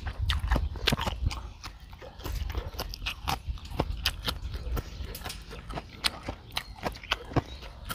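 Chewing and crunching a mouthful of green papaya salad with raw live shrimp, picked up on a clip-on microphone: a fast, irregular run of crisp clicks and mouth smacks.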